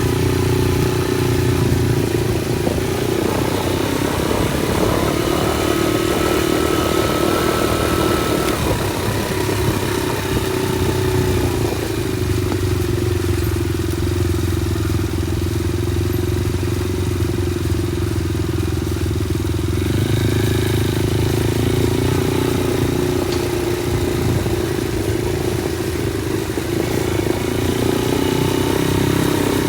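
Motorcycle engine running under way, its note rising and falling with the throttle: it climbs a few seconds in, settles lower for a long stretch, and picks up again near the end, over steady wind and road noise.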